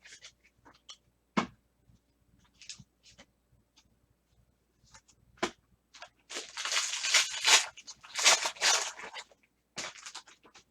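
Trading card pack wrapper being torn open and cards handled: scattered light clicks and taps of cards, then about three seconds of crinkly tearing and rustling from about six seconds in.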